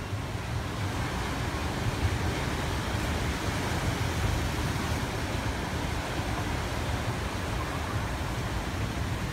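Steady wash of surf breaking on a rocky shore and concrete tetrapod seawall, with a low rumble underneath.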